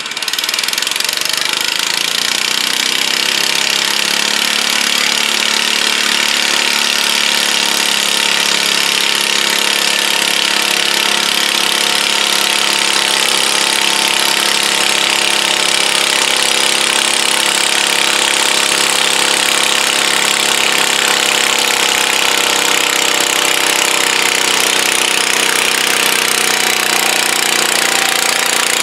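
Pulling garden tractor's engine revving up over the first few seconds as the pull starts, then held at high revs under load as it drags the weight-transfer sled down the track.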